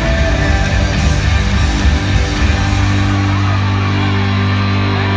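Loud hard-rock music with electric guitars played over an arena's PA system; a driving beat gives way about halfway to a sustained low chord.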